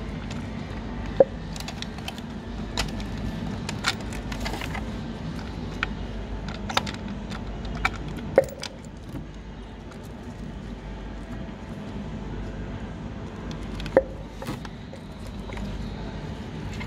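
Scattered sharp clicks and taps of plastic and metal as gloved hands unclip an ignition coil's connector and work the coil free, with the loudest snaps about a second in, about eight seconds in and about fourteen seconds in. A steady low hum runs underneath.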